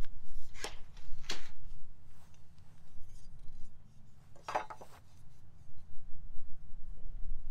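Hand-tool handling noises: a few short clicks and scrapes as a tape measure blade is retracted and a metal speed square is set on a cedar board for marking. A low steady rumble runs underneath.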